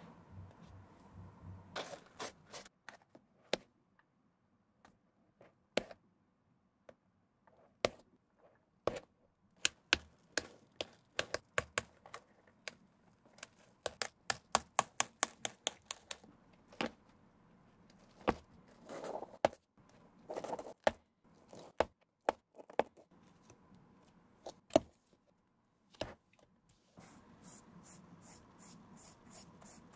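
A seam ripper cutting through the stitches that hold the leather swoosh on an Air Jordan 1 upper: a series of sharp clicks as the threads snap, isolated at first and then in quick runs in the middle. Near the end, a flat brush stroking a coating onto the leather in fast, even strokes.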